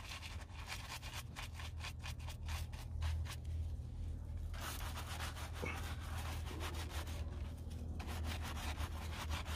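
Stiff-bristled brush scrubbing a soapy brake caliper in quick back-and-forth strokes, turning to denser continuous scrubbing around the middle, over a steady low hum.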